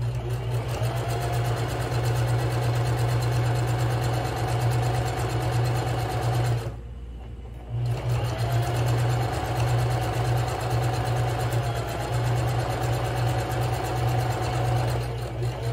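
Electric sewing machine stitching a seam through folded cotton fabric, its motor running steadily with a rapid needle rhythm. It stops for about a second around the middle, then sews on.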